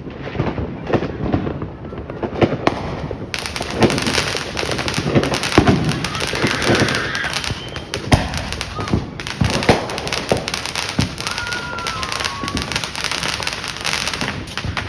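Consumer fireworks going off: a string of sharp bangs, turning into dense, continuous crackling from about three seconds in.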